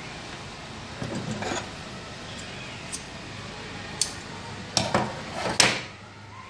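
Electrical insulating tape being pulled off its roll and wrapped around wire joints: a short rasping pull about a second in, then several sharp clicks and rips of tape and handled wires, the loudest a little before the end.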